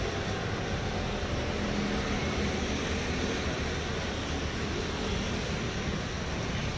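Steady street traffic noise: a continuous low rumble of passing scooters and cars, with no separate knocks or cuts standing out.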